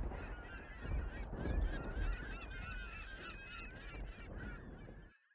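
A flock of birds calling, with many short overlapping calls over a low rumble. The sound cuts off abruptly near the end.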